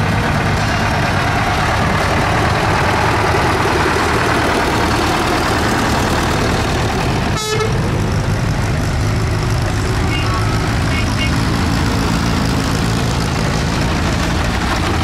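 Tractor engines running steadily and loudly as tractors drive past in a parade. Two short, high-pitched toots come about two-thirds of the way through.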